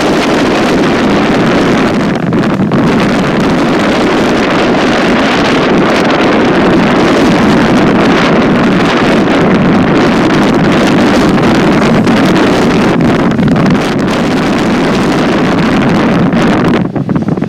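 Freight train rolling past with a steady loud rumble, mixed with wind buffeting the microphone; the rumble drops away suddenly near the end.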